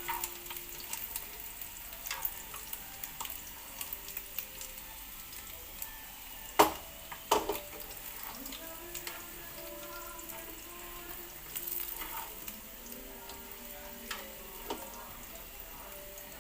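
Fish cakes frying in hot oil: a steady sizzle with frequent crackles, and two sharp knocks a little under a second apart about halfway through.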